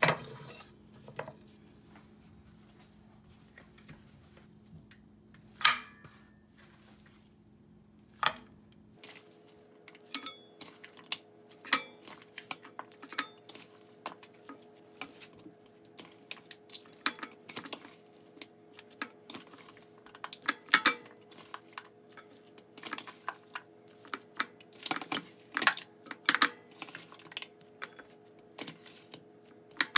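Seasoned mutton being scooped by gloved hands from a glass bowl into a metal pot: irregular clinks, taps and soft knocks of meat, bowl and pot. They are sparse at first and come thick and fast from about nine seconds in.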